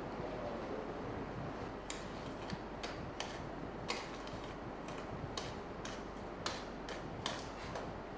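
Steel trowel scraping and clicking against an enamel tray while turning over a dry mortar mix: irregular sharp scrapes starting about two seconds in, over a steady background hiss.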